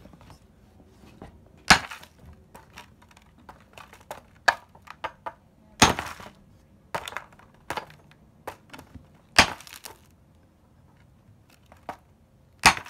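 Claw hammer striking a geode in a molded pulp tray: four hard blows about three to four seconds apart, with lighter knocks and taps between. The stone stays whole, chipping only a little.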